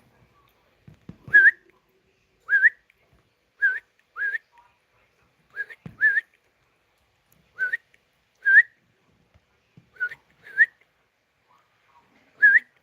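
A pet parrot whistling: about eleven short, rising whistle notes, given irregularly about once a second.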